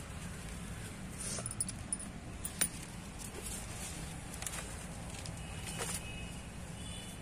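Broad bean vines being picked by hand: scattered sharp snaps and rustling of leaves, over a steady low hum.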